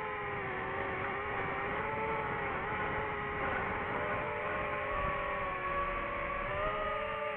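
DJI FPV drone's electric motors and propellers whining steadily, the pitch dipping a little around the middle and rising near the end as the throttle changes.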